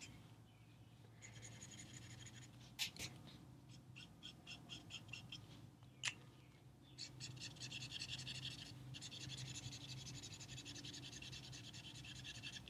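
Faint scratch of a Copic marker's felt nib rubbed back and forth on marker paper in short strokes, with steadier scrubbing in the second half. Two light clicks come near 3 s and 6 s.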